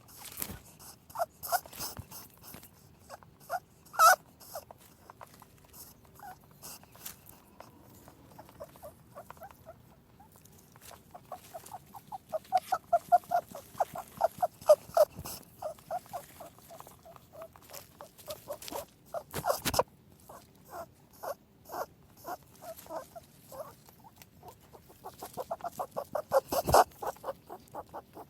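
A rabbit chewing food, with quick runs of crisp crunches at about six a second between pauses and a few louder sharp snaps.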